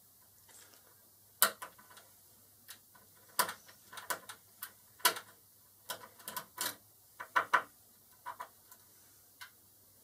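Lock pick working the pins of an E*S MP5 pin-tumbler door lock cylinder: irregular sharp metallic clicks and ticks as the pins are lifted and set under tension.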